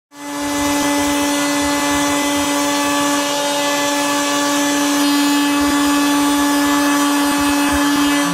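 Electric heat gun running steadily, a motor hum over a strong hiss of blown air, as it melts a beeswax and walnut oil paste into an oak tabletop.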